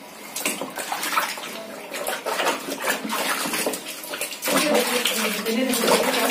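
Water sloshing and splashing in a plastic tub as hands rub and scoop water through a wet cat's fur, in short irregular splashes.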